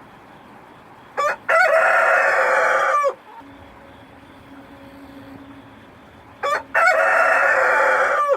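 Rooster crowing twice, about five seconds apart; each crow opens with a brief note and runs into a long held note of about a second and a half, over a steady background hiss.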